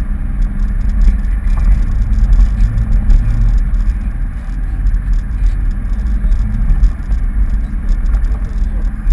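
Off-road 4x4's engine running under load as it drives up a grassy dirt track, picked up by a camera mounted on the bonnet: a steady, heavy low rumble.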